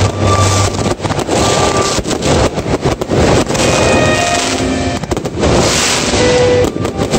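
Fireworks going off in a dense run of bangs, with music playing under them.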